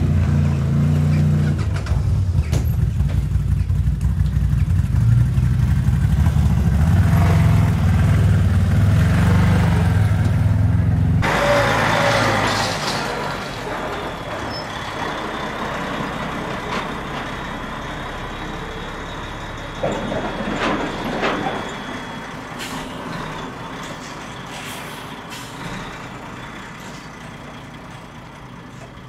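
A side-by-side UTV engine running steadily close by; then a car-transporter truck's air brakes hiss and squeal as it moves off, its diesel engine fading as it drives away.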